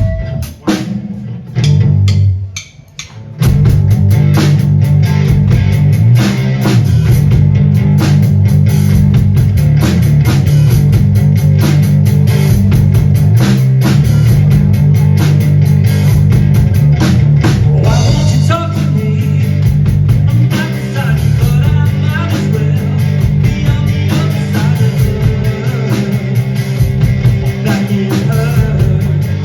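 A two-piece rock band playing live on guitar and drum kit. A few scattered hits open it, then the full band comes in together about three and a half seconds in and plays on steadily and loud.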